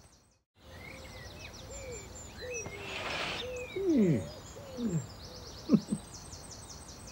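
Evening garden ambience: small birds chirping and trilling high, with a brief rush of noise about three seconds in. In the second half come three loud, low, hoot-like calls that each fall steeply in pitch.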